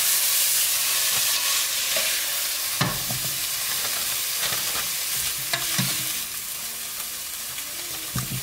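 Sliced prime rib sizzling in a hot frying pan, a steady hiss that eases in the second half. A few short clicks of metal tongs come as meat is lifted from the pan.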